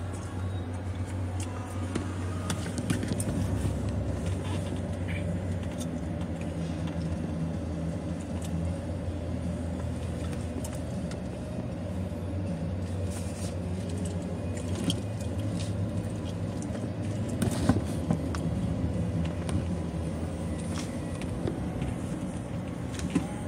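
Car engine and road noise heard from inside the cabin while driving slowly: a steady low hum with a few faint clicks.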